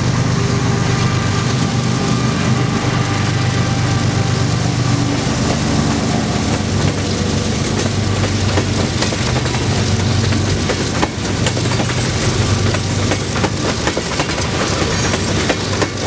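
Freight train passing close. The diesel locomotives' engines run with a steady low hum, then tank cars roll by with rhythmic wheel clatter over the rail joints, the clicks growing denser from about six seconds in.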